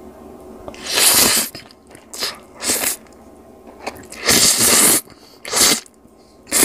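Dressed noodles being lifted and tossed with chopsticks in an earthenware bowl: wet, squelching bursts, about six of them, the longest just after the middle.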